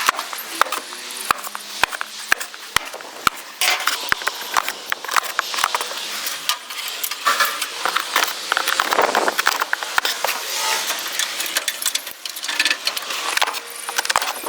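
Hand-tool work on metal: sharp clicks at about two a second, then denser clattering and scraping from about three and a half seconds in.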